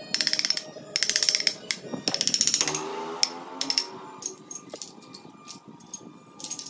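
A hand carving tool cutting into wood in loud bursts of rapid ticking as chips are pared away. About two and a half seconds in the cutting stops, leaving quieter background music with a few scattered taps.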